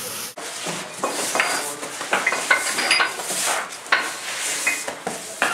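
Firefighters' gear clattering and scraping as they crawl on a concrete floor in SCBA: many irregular knocks and clicks of air cylinders, helmets and equipment against the floor and walls, with rubbing and shuffling in between.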